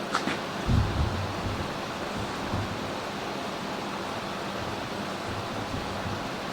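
Steady, even background hiss, with a sharp click at the start and a few heavy low thumps about a second in.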